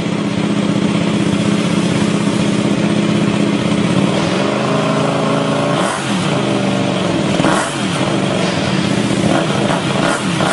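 Kasinki Comet GTR 250 EFI's V-twin engine running through a Coyote TRS 300 mm tri-oval aftermarket exhaust, idling steadily at first. From about the middle it is revved several times, the pitch rising and falling, with quicker blips close together near the end.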